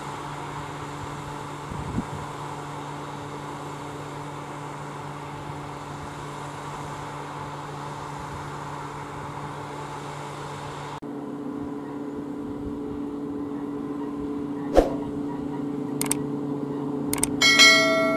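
Case IH Quadtrac 620 tracked tractor's diesel engine running steadily. After a cut about 11 seconds in, it is louder and at a different pitch as the tractor comes closer. Near the end there are a few sharp clicks, the loudest a knock about three seconds before the end, and a short chime.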